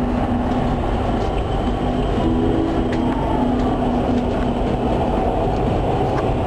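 Dubai Metro driverless train running, heard from inside the front car: a steady rumble with a low hum that comes and goes and a few faint clicks.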